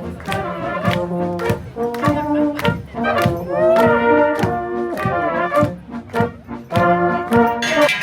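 Brass band music: brass instruments playing a tune over a steady beat of about two drum strokes a second. Near the end, ringing bells come in.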